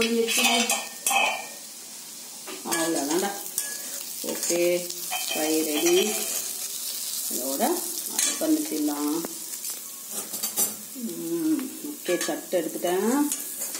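Metal spatula stirring and scraping prawn fry around a black kadai in irregular strokes, over a steady sizzle of frying. The prawns are being dry-fried uncovered, their water cooked off.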